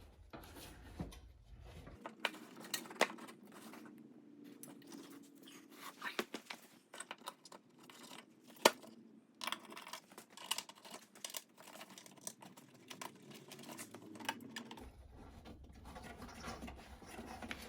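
Hand work on a lawn tractor frame: parts and fasteners being fitted by hand, heard as scattered clicks, scrapes and light taps, with one sharp knock about halfway through.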